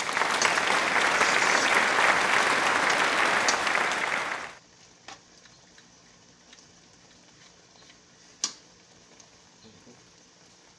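Thick, cooked-down jackfruit jam sizzling and bubbling in a metal pan: a loud crackling hiss that cuts off suddenly about four and a half seconds in. After that only faint clicks, with one sharper click a little past eight seconds, as a metal spoon stirs against the pan.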